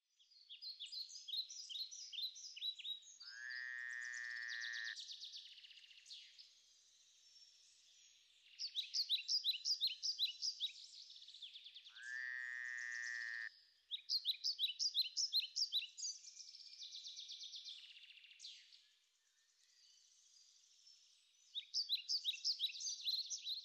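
Wildlife calling: bouts of rapid, high-pitched chirping trills, twice joined by a longer, lower call of about a second and a half. The same sequence comes round again about every nine seconds, like a looped nature recording.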